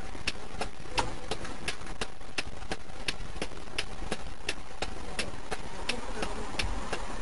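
Vehicle engine idling, with sharp, evenly spaced ticks about three times a second.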